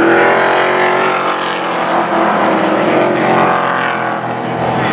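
Pro Truck race engines running, with a truck driving along the track; the engine note is loudest about the first second and swells again about three seconds in.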